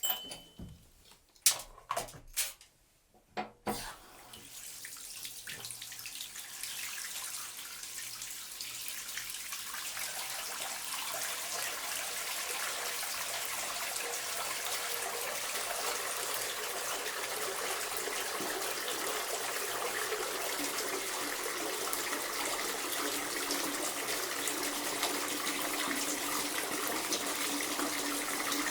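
A few sharp knocks in the first few seconds, then a bath tap starts running into a bathtub, the water noise building up over several seconds to a steady full flow.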